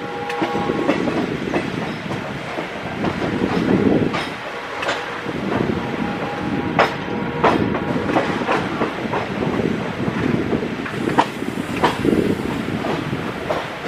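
Electric-locomotive-hauled passenger train rolling along the tracks, its wheels clacking and clicking irregularly over rail joints and points. A horn note dies away in the first second.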